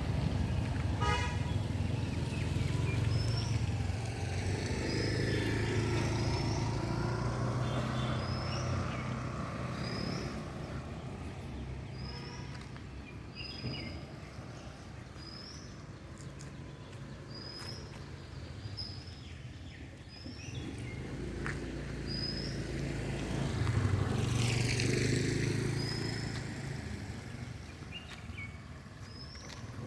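Road traffic passing: engines rumbling, louder at the start and again as a vehicle goes by about three-quarters of the way through. A short high chirp repeats about once a second over the traffic.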